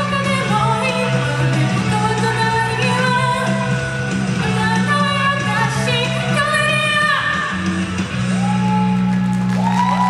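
A woman singing a pop-rock song into a stage microphone over a karaoke backing track. Her singing stops about eight seconds in and the backing music carries on.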